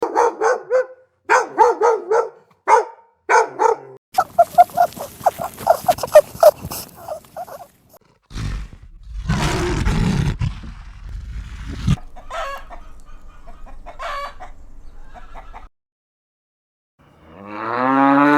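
Domestic chickens clucking and cackling in runs of short calls, with a rooster crowing. Near the end a separate, deeper rising call begins.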